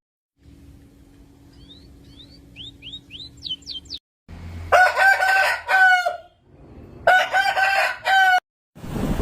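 A series of quick rising chirps, then a rooster crowing twice, each crow one long pitched call lasting about a second or more.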